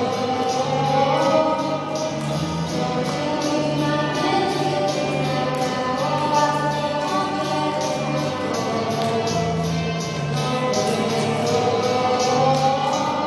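A girl singing into a microphone over a recorded backing track with a steady beat and bass line.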